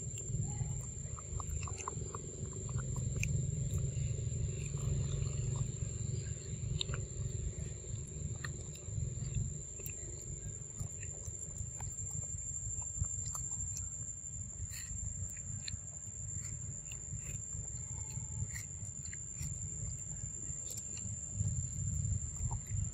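Macaque eating a ripe mango close to the microphone: wet smacking and chewing clicks over a low rumble, with a steady high insect whine behind.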